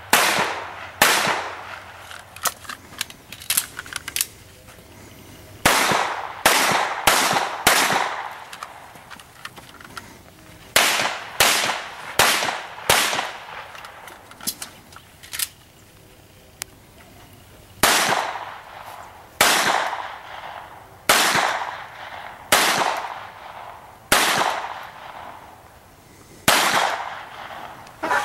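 Handgun shots in strings: quick groups of two or three shots in the first half, then seven single aimed shots about a second and a half apart near the end, each report ringing out briefly.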